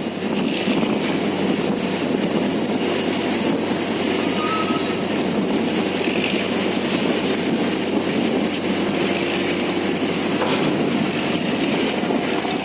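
Crane's heavy diesel engine running steadily under lifting work, with a brief knock about ten seconds in.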